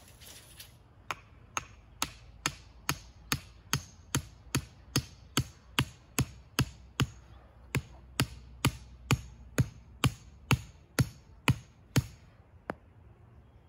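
Hammer driving a wooden stake into the ground: a steady run of sharp blows, about two to three a second, starting about a second in, with one last blow after a short pause near the end.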